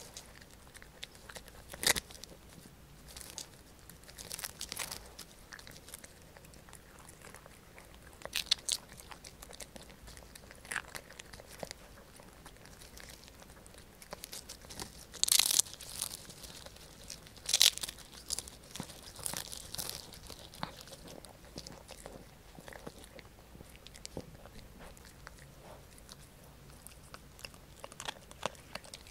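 Poodle biting and chewing a salt-free dried big-eyed herring (디포리) right at the microphone: irregular crisp crunches and crackles of the dry fish, the loudest a little past the middle, with quieter chewing between.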